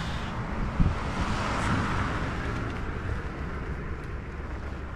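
Car driving along a road: steady road and wind noise, with a short thump about a second in.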